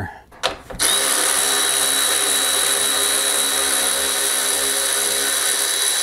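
Cordless power ratchet running steadily at one pitch with a high whine, starting about a second in, as it spins off a fastener on the golf cart's air box clamp.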